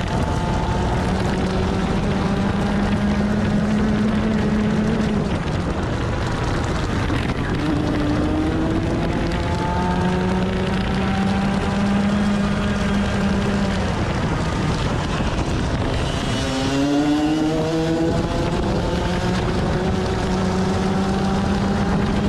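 125cc two-stroke TaG kart engine at racing speed, heard from on board: its pitch climbs along the straights and falls off under braking for corners, with a sharp drop and a quick climb back about seventeen seconds in.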